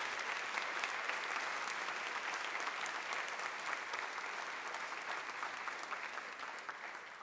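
A large audience applauding, the clapping slowly thinning and fading toward the end.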